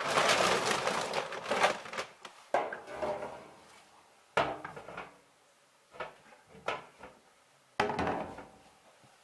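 A series of clattering knocks and rattles: a dense clatter for the first two seconds, then five or six separate sharp knocks spaced a second or so apart, as of hard objects being handled and set down.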